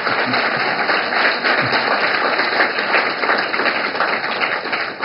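An audience applauding: many people clapping steadily.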